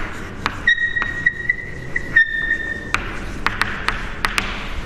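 Chalk tapping and scratching on a chalkboard as words are written, in short strokes. A steady high-pitched tone sounds for about two seconds starting just under a second in, with a short break in the middle.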